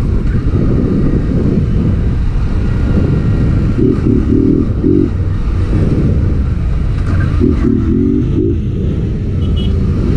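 Motorcycle engine running as the bike rides through traffic, a loud, steady low sound. Two short pitched blips stand out, about four seconds in and again near seven and a half seconds.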